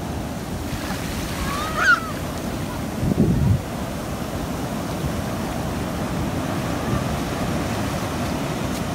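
Ocean surf breaking and washing up a beach, a steady rush with wind on the microphone and a louder low surge about three seconds in.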